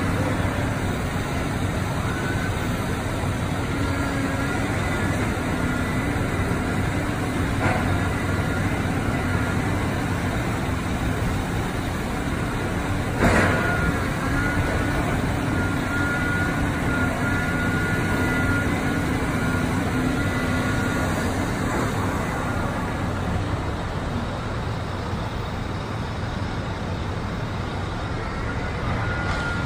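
Heavy diesel excavator running steadily as it clears rubble, amid street traffic noise. There is a single loud bang about thirteen seconds in and a fainter one near eight seconds.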